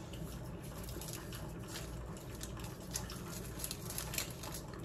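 Kitchen work with hot water: faint liquid dripping and light patter, with scattered small clicks of handling, over a steady low hum.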